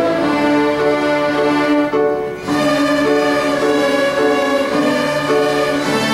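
A children's string orchestra playing violins together: sustained bowed notes moving through a melody, with a brief break between phrases about two seconds in.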